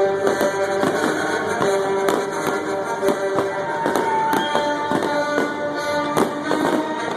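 Fireworks bursting in quick succession, many sharp bangs a second, over orchestral music played through a stadium sound system.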